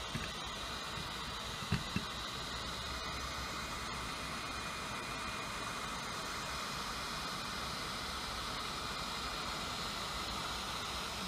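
Hot air gun blowing steadily, an even fan-driven hiss, as it heats the glue around an iPhone 6 NAND flash chip. Two light taps about two seconds in.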